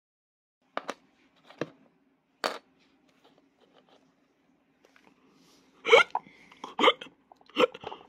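A person imitating hiccups: a few short sharp 'hic' sounds in the first few seconds, then a quick run of louder voiced hiccups near the end.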